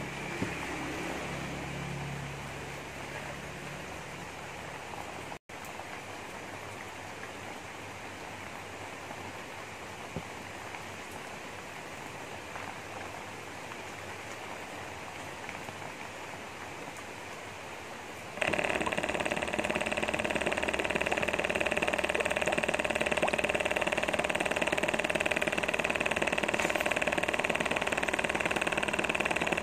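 Small electric motor of a homemade PVC-cap pump switching on suddenly about two-thirds of the way through and running steadily with an even whine, pumping water out of a tube that splashes into a glass.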